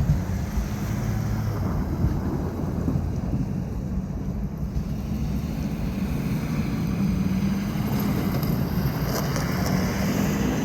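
Steady low engine rumble with a constant hum, mixed with wind noise on the microphone.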